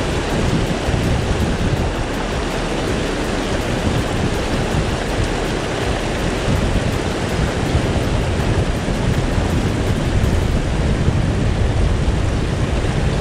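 River water rushing and splashing over rocks and a small drop close by, a steady loud rush that does not change.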